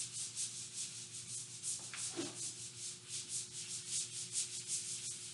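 Whiteboard eraser wiping marker off a whiteboard in quick back-and-forth scrubbing strokes, about five a second.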